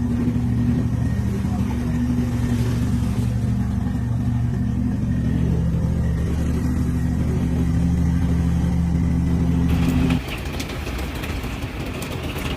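An engine running steadily at a constant pitch, a low, even hum. About ten seconds in it cuts off abruptly to a steady hiss with scattered crackles.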